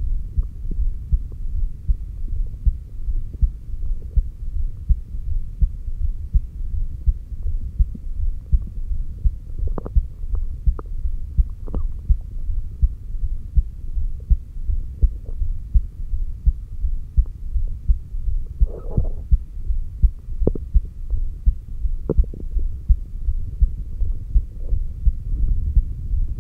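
Human heartbeat picked up by a stethoscope on the chest over the heart's apex: a steady, even run of low thumps. A few faint clicks and a short scrape-like noise come over it now and then.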